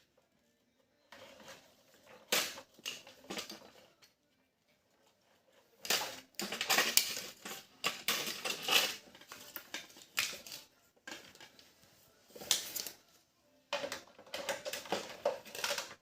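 Hard plastic toy pieces clattering and clicking as they are handled, in irregular bursts with short pauses, the busiest stretch about six to ten seconds in.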